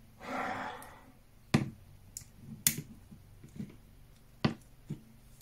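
A small metal ratchet head and its loose pins handled in the fingers: about six sharp, irregular clicks, after a brief hiss at the start.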